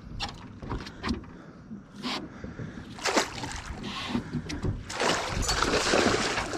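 A hooked musky being netted beside a fishing boat: scattered knocks and bumps on the boat, then a loud stretch of splashing and thrashing in the water starting about five seconds in.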